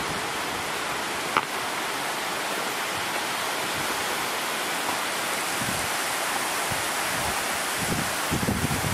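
Heavy rain falling steadily, making a dense, even hiss. Near the end, gusts of wind buffet the microphone with a low rumble.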